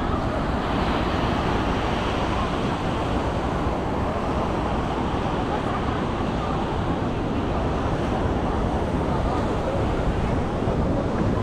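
Ocean surf washing onto a sandy beach, a steady rush of noise, with wind rumbling on the microphone.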